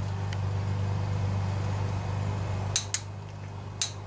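A few sharp metal clicks from a hand tool working the rocker-arm set screw of a Briggs & Stratton Intek OHV engine's valve train, two close together past the middle and one more near the end, over a steady low hum that drops off partway through.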